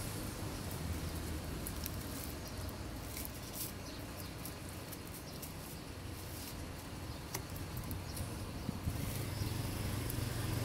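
Clear plastic grafting tape on a mango graft crinkling and crackling under the fingers as it is handled and unwound, a scatter of small crackles through the middle of the stretch, over a steady low rumble.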